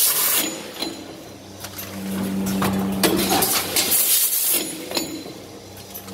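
Vertical form-fill-seal packing machine running through its bagging cycle: a low hum that comes and goes, metallic clicks and clatter from the jaws and linkages, and short sharp hisses of air, repeating about every four seconds.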